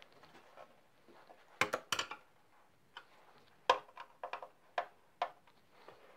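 Scattered light clicks and knocks, about six in all, from a moped's leg-shield panel and its fixings being handled and fitted; the loudest pair comes about one and a half seconds in and rings briefly.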